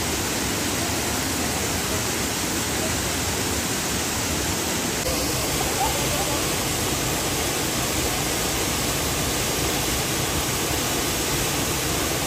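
Steady rush of a waterfall pouring into a rocky pool.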